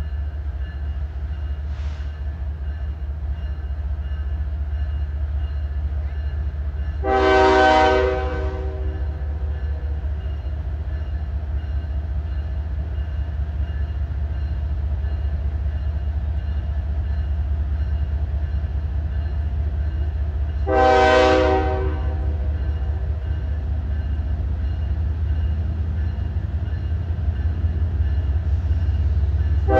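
Approaching freight train: the locomotive's air horn sounds two blasts of about a second and a half each, one about seven seconds in and one about twenty-one seconds in. A low rumble lies under them and slowly grows louder.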